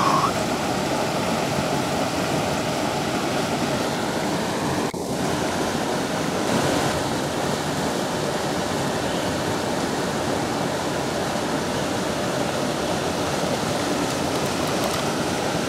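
Steady rush of falling water from a spillway, with a brief dropout about five seconds in.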